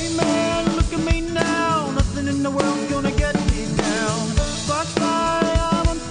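Karaoke backing track of a country-rock song, with the lead vocal left out: the full band plays over a steady drum-kit beat of kick and snare.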